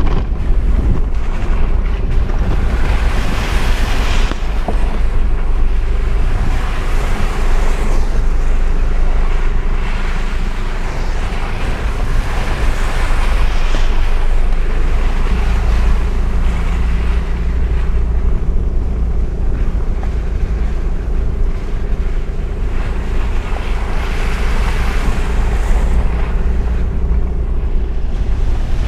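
Off-road 4x4 driving along a rough dirt track, heard from inside the cab: a steady engine drone under a loud low rumble and noise from the track and wind.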